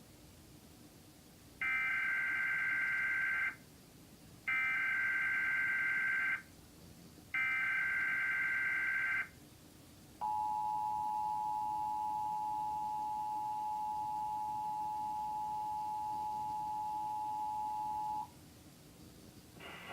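Emergency Alert System broadcast: three bursts of SAME header data tones, each about two seconds long, carrying the encoded alert. These are followed by the EAS two-tone attention signal, held steady for about eight seconds, which announces a test tornado watch.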